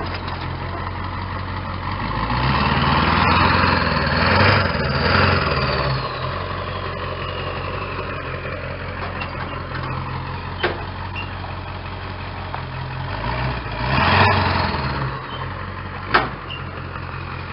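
Truck engine idling while towing a trailer, revs rising and falling as it pulls, once about two seconds in and again near the end. Two sharp clacks, the second the louder, come between.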